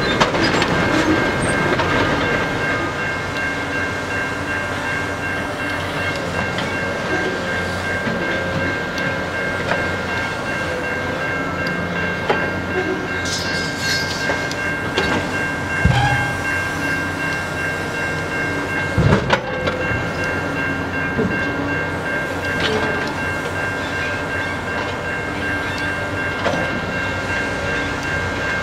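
Rail maintenance work train with an excavator grapple on its gondola cars, running with a steady high whine. There are occasional clunks, the loudest two about 16 and 19 seconds in.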